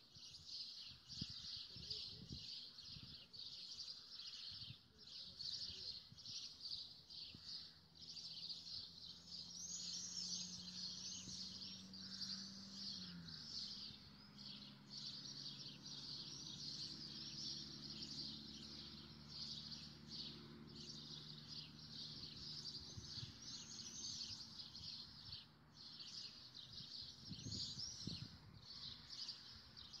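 Small birds chirping continuously in a dense chorus. A low steady mechanical hum sits underneath from about eight seconds in, dropping in pitch once around thirteen seconds and fading near the end.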